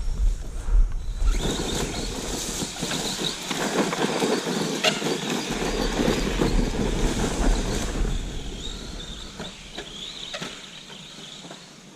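Arrma Granite BLX brushless 4x4 RC truck driving over the yard with a rattling, clattering run of tyres and drivetrain. It comes in about a second in, stays loud for several seconds, then fades away.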